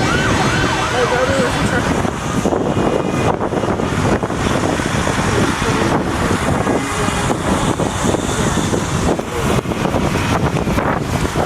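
An emergency-vehicle siren yelping in quick rising-and-falling sweeps for the first second or so. Then a loud, steady mix of heavy trucks rolling past and wind on the microphone takes over.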